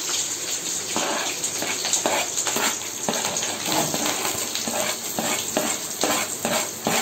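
Hot oil sizzling and crackling in a metal kadai with mustard seeds, curry leaves and green chillies in it. About halfway through, chopped onions are scraped off a cutting board into the pan and the frying goes on.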